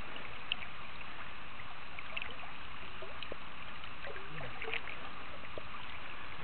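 Steady rush of flowing river water, with a few faint scattered clicks.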